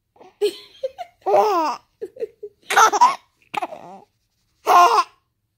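Baby laughing in about five short bursts with brief silent pauses between them.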